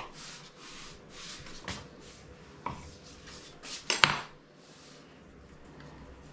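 Knife cutting and scraping through a slab of pork pie pastry on a floured board: a few short scrapes and taps, with a sharp knock about four seconds in.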